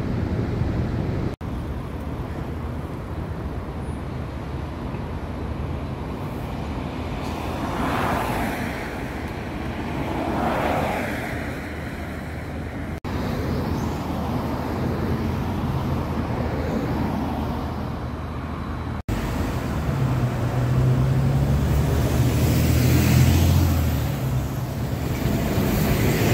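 Road traffic: vehicles passing one after another, with a low engine drone close by for a few seconds near the end. Brief dropouts break the sound twice where it jumps between recordings.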